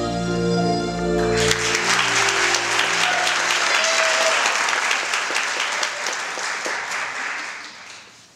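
Music with sustained chords ends about a second in, and an audience breaks into loud applause that gradually fades out near the end.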